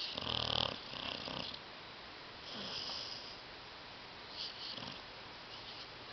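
A sleeping dog snoring: one strong snore at the start, a shorter one about a second in, then softer snoring breaths.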